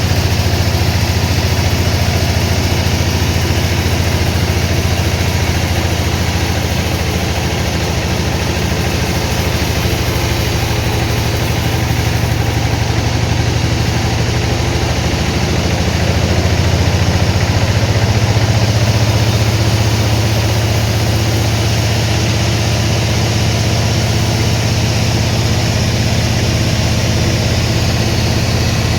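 Sawmill engine running steadily with a deep hum, growing slightly louder about two-thirds of the way through.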